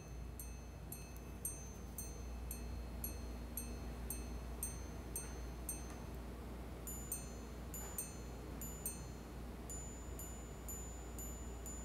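Patek Philippe Gondolo 5033P minute repeater chiming the time on its two gongs, struck about twice a second. Single low-gong hour strikes come first, then two-note quarter strikes on both gongs about seven seconds in, then high-gong minute strikes from about ten seconds in, which carry on past the end.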